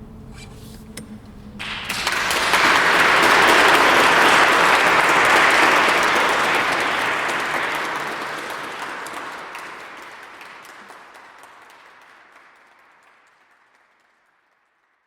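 Audience applauding: a few scattered claps, then applause that swells quickly to full about two seconds in and dies away gradually over the next ten seconds.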